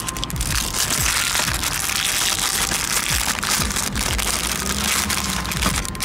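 Firecracker fuse burning with a steady fizzing hiss and scattered crackles, cutting off suddenly near the end.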